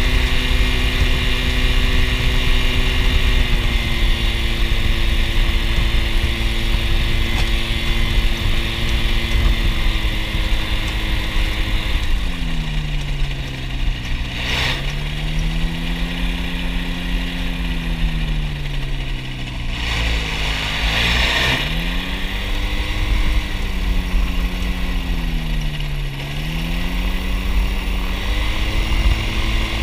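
Ultralight aircraft engine and propeller running at low power while taxiing. The note holds steady for the first half, then sags and climbs again three times as the throttle is eased back and opened.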